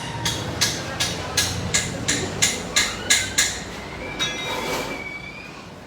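Sharp metallic strikes, about three a second and evenly spaced, each with a brief ring, ten in all; they stop and a high squeal rises a little and holds for about a second and a half before fading.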